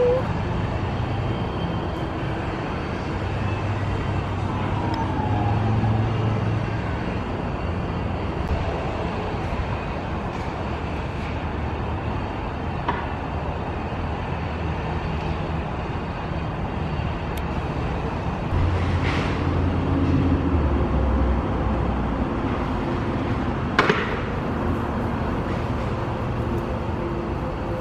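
Steady outdoor background noise with a low traffic rumble, and a single sharp click about 24 seconds in.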